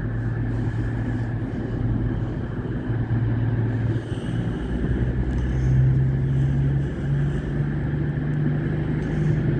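Class 222 Meridian diesel multiple unit's underfloor diesel engines pulling away from the platform, a steady rumble whose engine note steps up in pitch about halfway through as it accelerates.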